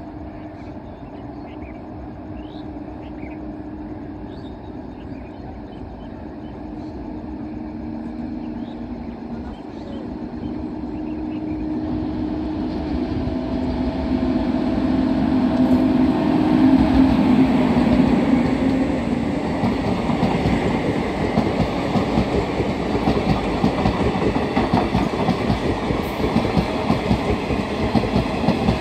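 An express train hauled by an electric locomotive runs through the station without stopping, growing steadily louder as it approaches. Its hum peaks and drops in pitch as the locomotive passes, about two thirds of the way in. After that the coaches rush by, their wheels clattering rhythmically over the rail joints.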